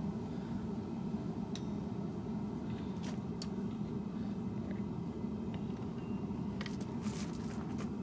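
Steady low roar of a running forge, with a few faint light clicks.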